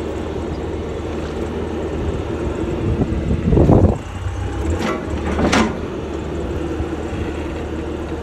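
An engine idling steadily, broken by a heavy thump about three and a half seconds in and a sharper knock about two seconds later.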